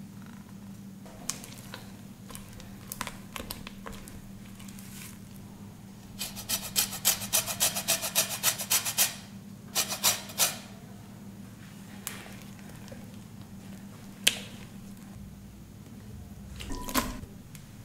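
An orange rasped against a flat stainless-steel hand grater: a quick run of scraping strokes lasting about three seconds, then a few more strokes. Later comes a single sharp clink.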